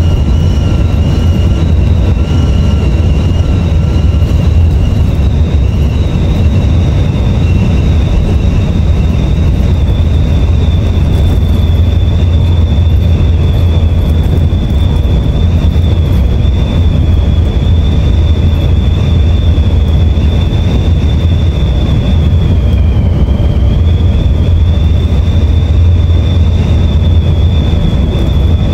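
Coach bus driving at highway speed, heard inside the cab: a loud, steady low drone of engine and road noise. Over it runs a thin high whine that holds steady and dips briefly about four-fifths of the way through.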